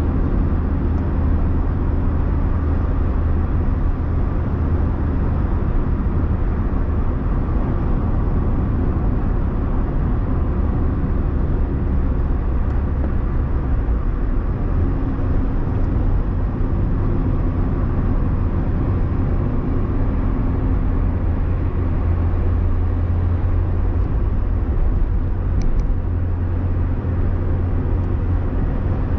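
Steady engine and tyre rumble inside the cabin of a car driving along at a constant moderate speed.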